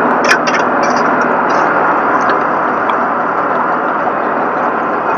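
A vehicle engine running steadily, with a short clank just after the start.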